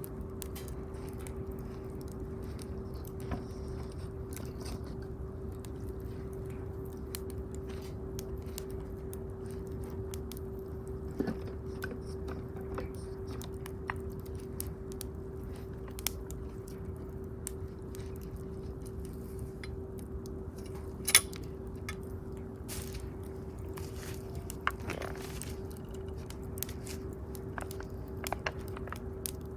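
Wood bonfire crackling, with scattered sharp pops, the loudest about 21 seconds in. A steady low hum runs underneath.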